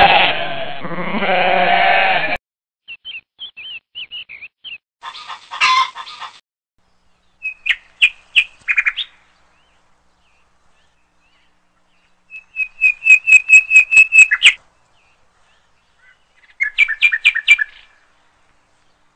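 A goat bleats for about two seconds, cut off abruptly. It is followed by several separate bursts of short high chirps and one rapid trill of about six notes a second.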